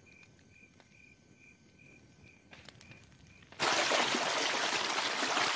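Faint cricket chirping from the anime's soundtrack ambience, a short high chirp repeating about two to three times a second. About three and a half seconds in, a sudden loud rushing noise cuts in and carries on.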